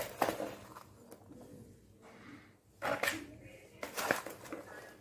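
Potting mix of compost, cocopeat and soil being scooped out of a plastic tub and tipped into a plastic pot, giving scraping, rustling scoops: one as it begins and two more about three and four seconds in.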